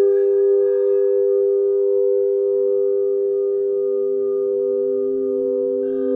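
Singing bowls ringing, holding several steady pure tones together; a lower tone joins about two and a half seconds in, and another bowl is sounded near the end.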